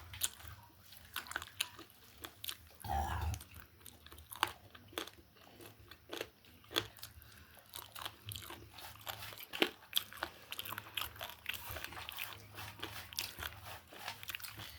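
Close-up chewing and biting while eating chicken: wet, crunchy bites and smacks at an irregular pace. A brief voice sound about three seconds in.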